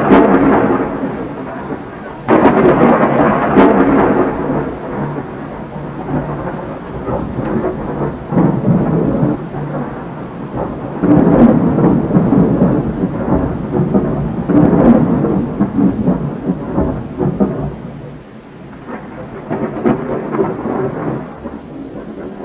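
Thunder from a lightning storm: a sudden loud clap about two seconds in, then a long rolling rumble that swells and fades several times, with rain falling.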